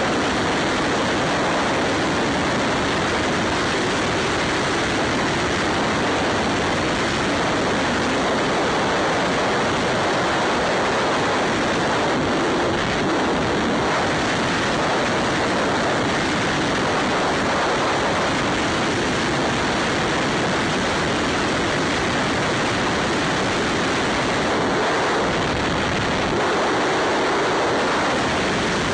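Steady wind rush and road noise on a camera mounted on a Ducati Scrambler motorcycle cruising at speed, with no distinct engine note standing out.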